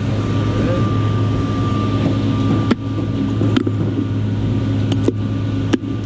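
Steady drone of running site machinery, with about four sharp knocks in the second half from a hammer working on wooden formwork during stripping.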